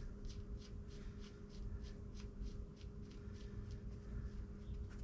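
Primary-case drain plug on an Evo Harley Sportster being threaded in by hand: a quick run of faint light clicks, about six a second, from the plug's threads turning between the fingers, over a low steady hum.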